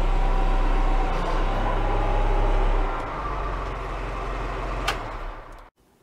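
JCB 214 backhoe loader's diesel engine running steadily while the loader hydraulics lower the grapple. About three seconds in the engine note drops and gets quieter, there is a single click near five seconds, and the sound cuts off suddenly near the end.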